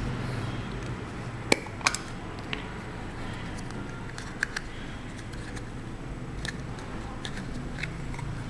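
Scattered light clicks and taps of plastic Play-Doh tools and moulds being handled, over a steady low hum.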